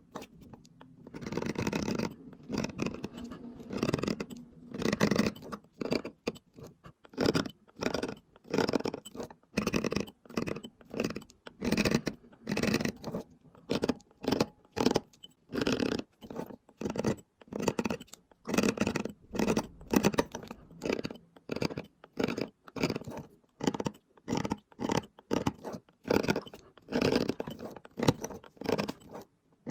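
Hand tool scraping and rasping on stone in short, repeated strokes, roughly one to two a second, during hand carving.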